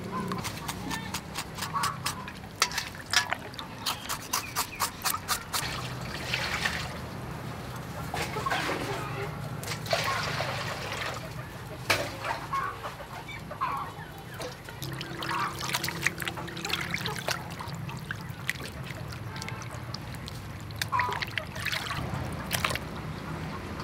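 Water splashing and dripping in a metal bowl as raw pig intestines are washed by hand, with chickens clucking now and then in the background.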